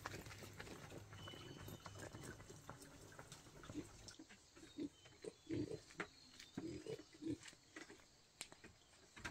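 An animal making short, low grunts, repeated in small clusters through the second half. Before that there is a faint steady low hum with scattered clicks, which stops about four seconds in.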